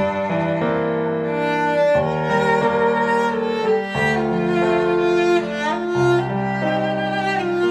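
Cello duet with piano playing back through Fostex GX100BJ bookshelf speakers driven by a Sansui AU-α607NRAII amplifier, picked up in the room. Slow, sustained bowed notes change every second or two.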